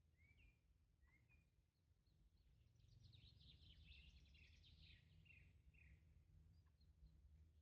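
Faint songbirds chirping: a few short rising chirps, then a fast twittering song for about three seconds, over a low steady rumble.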